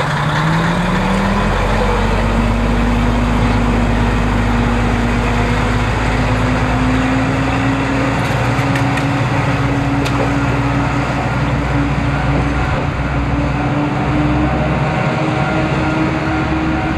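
Diesel railcar engine pulling away under power, its note climbing quickly in the first couple of seconds and then rising slowly as the railcar gathers speed.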